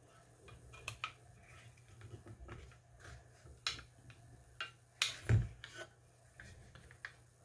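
Hard plastic model-kit parts clicking and rubbing as they are pressed onto a plastic chassis, with scattered small clicks and one louder knock about five seconds in as the chassis is handled.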